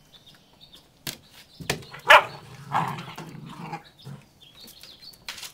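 Poodle puppies barking and yipping in short, irregular bursts, the loudest about two seconds in.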